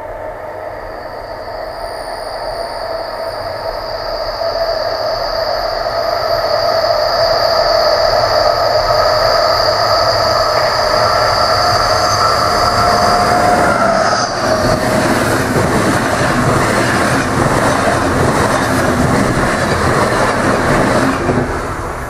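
HŽ class 1142 electric locomotive hauling a passenger train, approaching and passing close by. A steady high whine grows louder and drops in pitch as the locomotive goes past about fourteen seconds in. The coaches then rumble and clatter by until they fade near the end.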